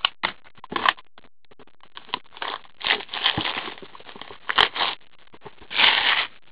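Trading-card box being handled and opened by gloved hands: irregular cardboard scraping and rustling with a few sharp clicks and taps, the loudest scrape near the end.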